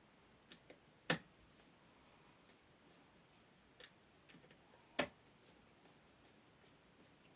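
Small hard parts being handled during fan reassembly: a few light ticks and two sharper clicks, about a second in and about five seconds in.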